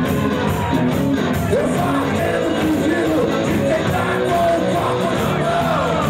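Live rock band playing, with the male lead singer singing and shouting into the microphone over the band.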